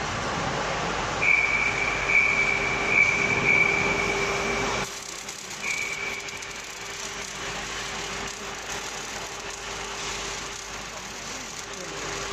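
Machinery running with a steady hum and a high whine. The whine sounds for a few seconds, cuts off about five seconds in, and briefly returns about a second later.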